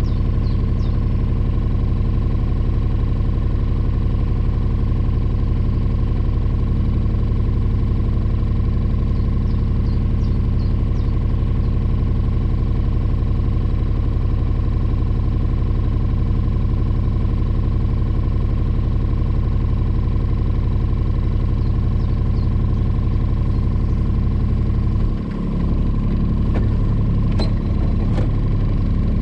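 Mini excavator engine running steadily, with a steady whine above it. About 25 seconds in the engine note shifts and wavers, and a few sharp knocks come near the end.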